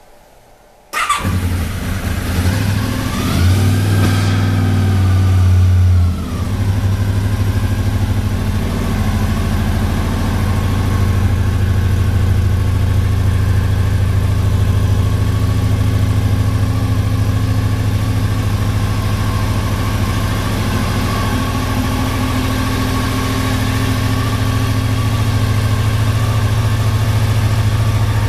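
1986 Honda VFR700 Interceptor's V4 engine starting about a second in. It runs at raised revs for a few seconds, then settles into a steady idle.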